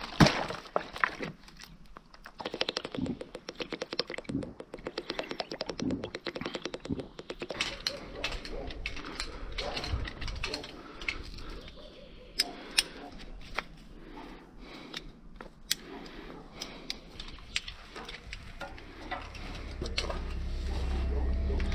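Climbing gear being handled while a rope is rigged: a long run of light clicks, taps and knocks of metal hardware and rope, densest in the first several seconds. A low rumble swells in near the end.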